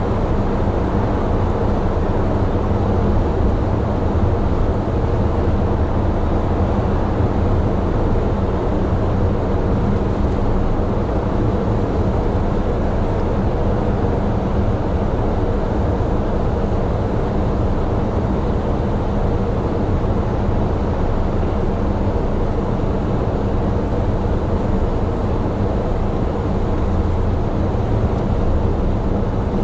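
Mitsubishi Fuso heavy truck driving at a steady speed: a steady low engine drone under an even hiss of tyre and road noise on a wet road.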